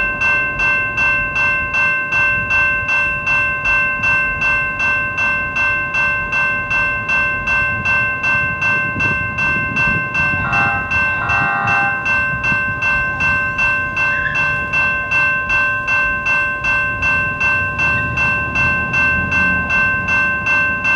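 General Signals Type 2 electronic crossing bells ringing steadily at about two strikes a second, the warning of an activated crossing with an approaching train. A short horn-like tone sounds about ten and a half seconds in, and a low rumble builds near the end.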